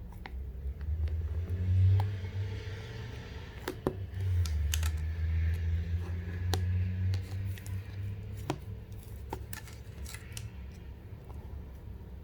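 Hands playing with a yogurt slime: scattered sticky clicks and pops, with a low rumble of handling close to the microphone that swells twice.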